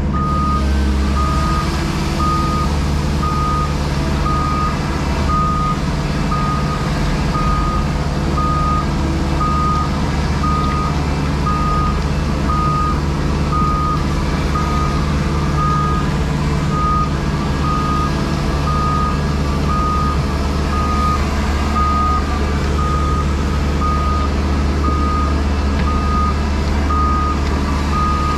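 Reversing alarm on a JCB Pothole Pro beeping at an even rate over the machine's diesel engine running steadily.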